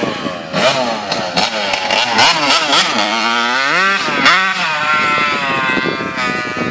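125cc motocross bike engine, its pitch rising and falling repeatedly as the rider works the throttle, with two quick revs about four seconds in.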